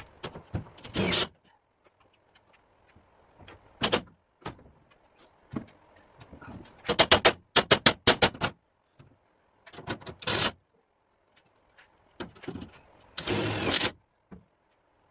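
Intermittent shop work on a vehicle body: a few single sharp knocks, then a quick run of about eight sharp strikes near the middle, and a short noisy burst of under a second near the end.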